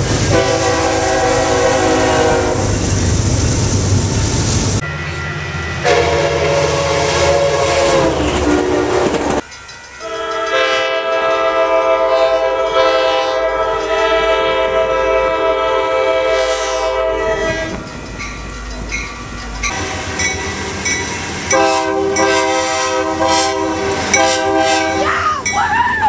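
Diesel locomotive air horns sounding long blasts, each a chord of several steady tones, cut together from different recordings so the horn changes abruptly several times. The low rumble of a passing freight train runs under the first few seconds.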